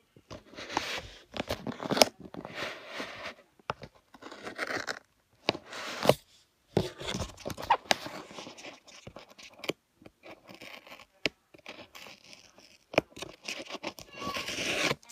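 Packing tape and cardboard packaging being torn and handled, in irregular ripping strokes with sharp clicks and knocks between.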